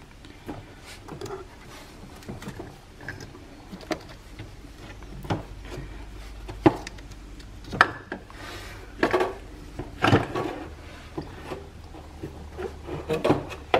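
Irregular knocks, clunks and scraping as a new engine mount is pushed and twisted by hand down past engine parts, with several sharper knocks in the second half.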